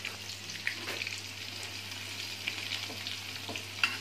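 Dried anchovies coated in tapioca starch frying in hot oil in a wok: a steady sizzle with scattered small pops, and a sharper click of a spatula against the wok near the end as the fish is stirred.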